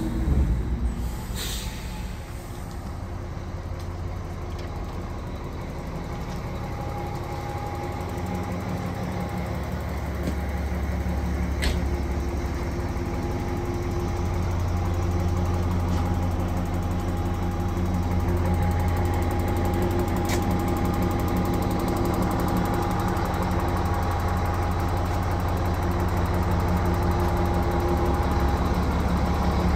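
Volvo A25D articulated dump truck's diesel engine running steadily at idle, its hum growing a little louder and fuller partway through. A couple of faint sharp clicks sound over it.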